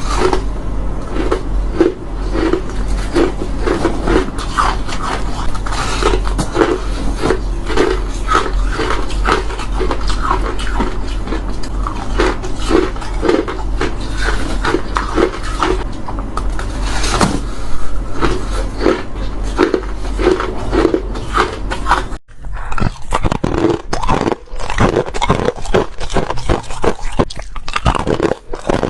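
Close-up crunching of crushed ice being bitten, one rapid crunch after another, with a brief break about three-quarters of the way through.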